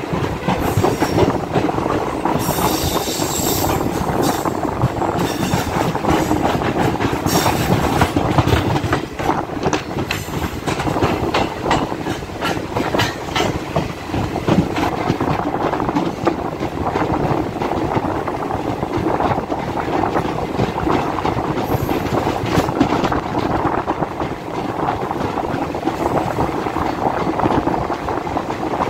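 DEMU train running on the track, heard from an open window of the moving coach: steady wheel-and-rail rumble with clattering over the rail joints. A few brief high wheel squeals come in the first several seconds and once more later on.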